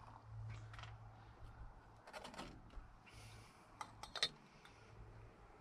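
A few light clicks and taps from handling metal camping cookware (pot, lid and cup), the loudest just past four seconds in, over a steady low hum.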